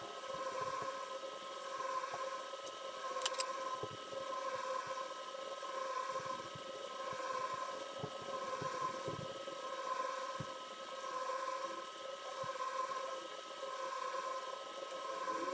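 A steady machine hum over a hiss, swelling and fading about every one and a half seconds. Faint knocks from hand work and one sharp click about three seconds in.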